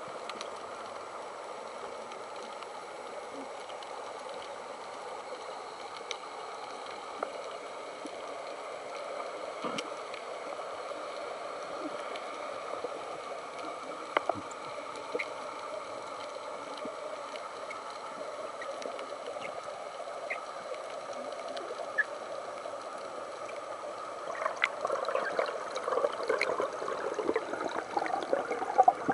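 Steady underwater rushing noise heard through a camera's waterproof housing, with a few scattered sharp clicks. In the last few seconds it turns louder and choppier as water churns near the surface.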